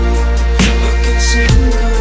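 Electronic background music with a deep, steady bass and a drum hit about once a second.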